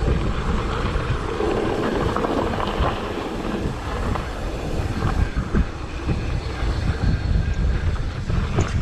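Mountain bike ridden over loose, rocky dirt singletrack: a continuous rumble of the tyres on the loose surface, with the bike rattling and knocking over the bumps.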